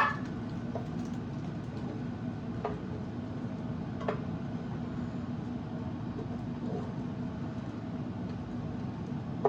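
Butter-fried grilled cheese sandwiches sizzling steadily in a frying pan, over a low steady hum. A few light taps of a spatula against the pan.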